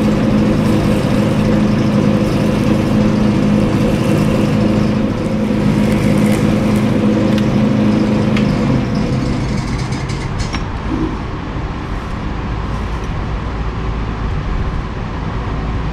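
Atlas metal lathe running steadily under cut as a brazed tool bit turns down a white plastic hammer-head blank, the motor and drive giving a steady hum. About ten seconds in the spindle winds down and stops, leaving a lower, rougher noise.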